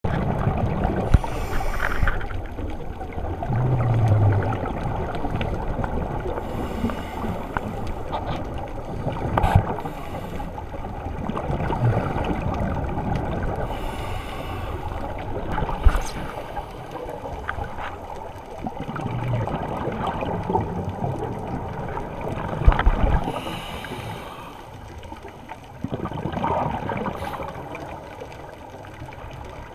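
Scuba diver breathing through a Mares regulator, heard underwater: gurgling rushes of exhaled bubbles every few seconds over a steady muffled water hiss.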